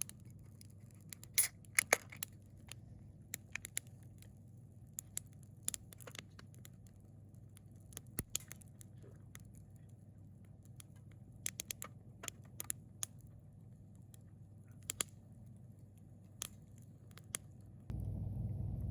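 Scattered, irregular sharp clicks and ticks, some in quick pairs, over a faint low steady hum.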